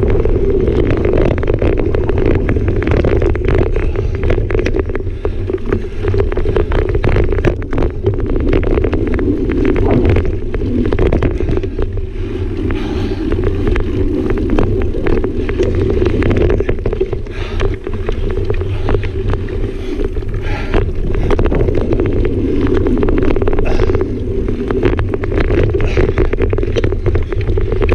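Mountain bike riding fast over dirt singletrack, heard from a bike-mounted camera: the knobby tyres roll and wind buffets the microphone, with frequent clicks and rattles as the bike hits bumps.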